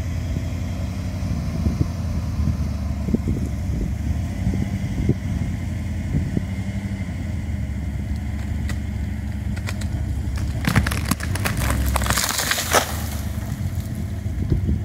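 Pickup truck engine running steadily under load as it pulls a tree down with a line. About ten seconds in, a burst of cracking and snapping branches lasting a couple of seconds as the tree gives way and is dragged through the brush.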